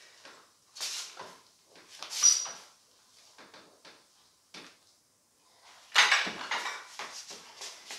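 Metal adjustable dumbbells (PowerBlocks) clacking and rattling as they are lifted onto the knees and kicked back into the start of a dumbbell bench press, a string of separate knocks with a heavier thump about six seconds in.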